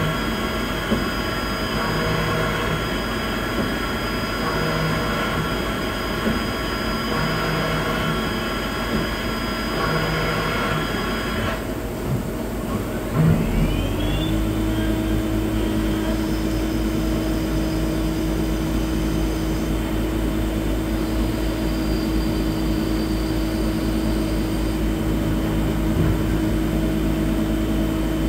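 Okuma Genos 2000e CNC lathe running on brass bar stock: a steady machine whine of several tones. About twelve seconds in the whine cuts off, then a rising glide and a brief knock, and the machine settles into a different steady hum with one strong tone.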